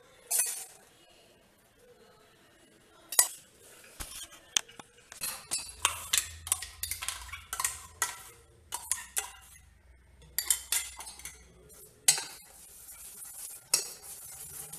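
Steel spoon clinking and scraping against a stainless-steel mixer-grinder jar and bowl as thick ground dosa batter is scooped out. The irregular sharp clinks come a few at first and then thickly in the middle. Near the end they give way to a softer sound of batter being mixed by hand in the bowl.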